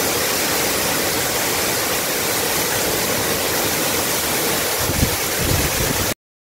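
Monsoon waterfall in full flood: a loud, steady rush of falling water, with a few low thumps about five seconds in. It cuts off suddenly shortly before the end.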